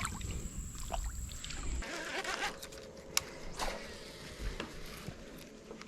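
Water splashing and trickling as a bass is let go back into a pond, with a low rumble for the first couple of seconds that stops suddenly. A few sharp clicks follow.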